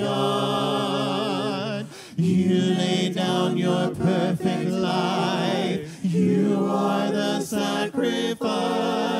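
Mixed group of men and women singing a worship song a cappella in harmony, voices only with no instruments, with vibrato on the held notes.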